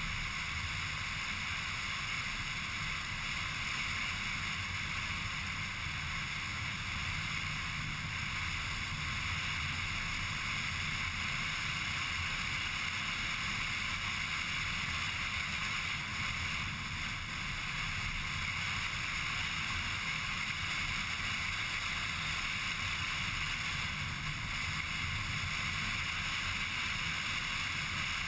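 Steady road and engine noise of a car driving along a sealed country road, heard from inside the car: a constant low rumble under an even hiss, with no change in pace.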